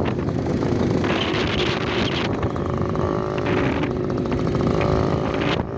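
A vehicle's engine running steadily while travelling along a rough dirt road, with road noise over it.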